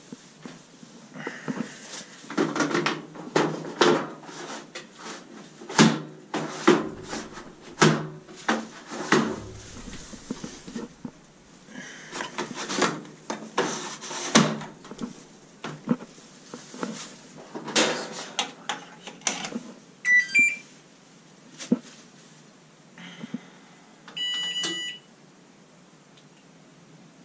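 Irregular knocking and clattering of parts and panels being handled, then a couple of short electronic beeps about two-thirds of the way in and one longer beep near the end from the Samsung washing machine's control panel as it is powered up and set going after the door-lock and board repair.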